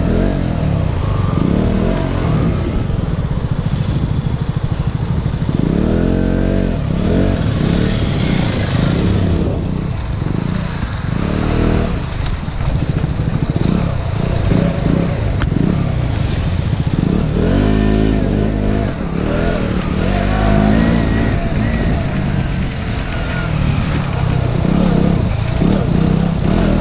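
Motorcycle engine ridden along a dirt trail, its pitch rising and falling over and over as the throttle is opened and closed, heard close up from the rider's camera.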